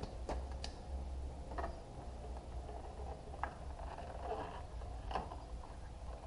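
Scattered light clicks and taps of radiator and A/C condenser parts being handled and shifted, over a low steady hum.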